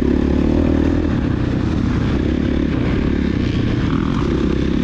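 Dirt bike engine running as the bike is ridden.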